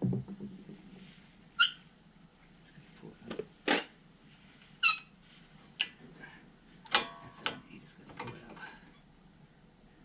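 Sharp metallic clicks and clinks, about six of them, several with a brief ring, as worn brake pads are worked out of the front brake caliper bracket of a 2012 Toyota RAV4.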